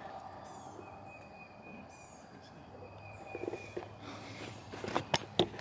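Woodland ambience: short high bird chirps over a steady high trill. From about three seconds in, footsteps rustle and crunch through leaf litter and brush, with a few sharp snaps near the end.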